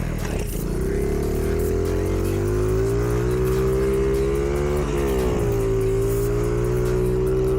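Mini bike's small engine running under throttle while being ridden; its pitch drops twice, near the start and about five seconds in, then climbs back and holds steady.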